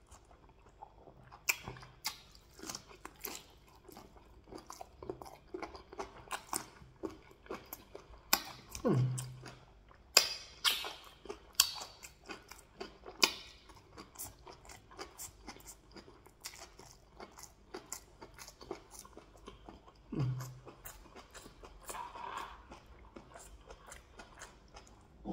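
Close-up eating sounds: chewing, biting and crunching of meat and rice in waterleaf soup, with many quick wet clicks and crackles. A couple of brief low sounds dropping in pitch come through about a third of the way in and again near the end.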